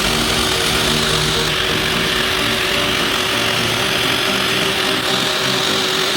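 An electric power tool's motor running steadily at speed, a continuous high whine with no break.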